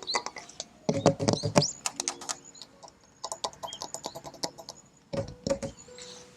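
Fingers tapping on the metal body of an excavator in quick, irregular clusters, some taps leaving a brief ringing tone from the panel.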